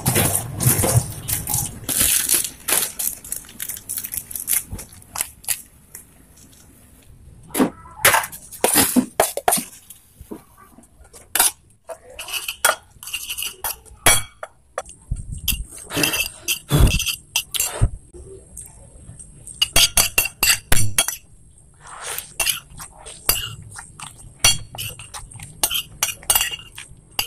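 Spoon and dish clinks: a spoon tapping and scraping on a ceramic plate, in many short, scattered clinks with quieter gaps between.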